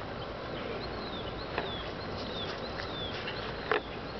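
Small birds chirping in short, high, arching calls over a steady low outdoor background, with two sharp clicks, the louder one near the end.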